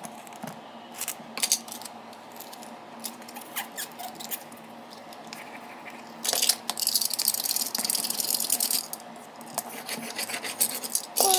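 Clear plastic packing tape over a painted cardboard board being handled and smoothed flat: scattered light taps and crinkles, then, about six seconds in, a couple of seconds of dense, rapid crinkling and scraping. A few sharp clicks follow near the end.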